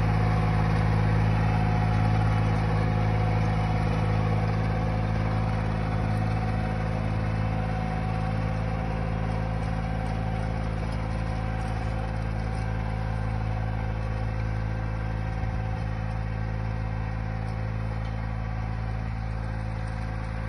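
Compact tractor's engine running steadily under load while it pulls a rear rotary tiller through the soil, fading gradually as the tractor moves away.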